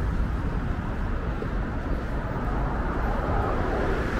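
Steady city road-traffic noise: a continuous low rumble of cars passing on a busy street.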